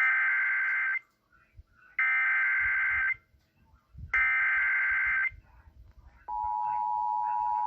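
Emergency Alert System SAME header: three one-second bursts of shrill digital data tones, about a second apart. About six seconds in, the steady two-tone EAS attention signal begins, announcing the warning that follows.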